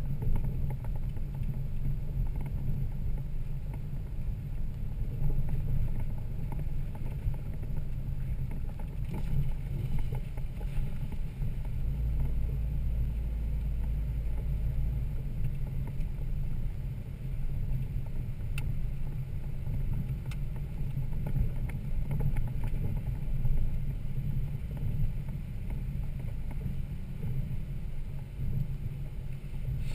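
Toyota Land Cruiser 80 Series inline-six engine running steadily with a wavering low rumble while the truck drives an off-road trail, with a deeper low drone for a few seconds near the middle.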